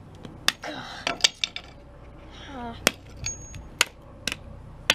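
A steel claw hammer knocking and prising at a small plastic Bluetooth speaker on concrete, working a metal part loose. The sound is a run of sharp clinks and knocks, about nine, at uneven intervals.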